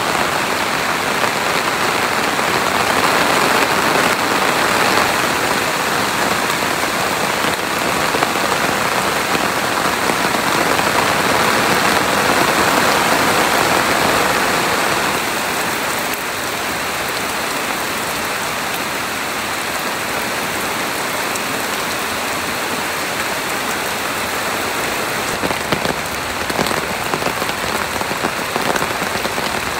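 Steady rain falling, a little heavier in the first half and easing slightly about halfway through.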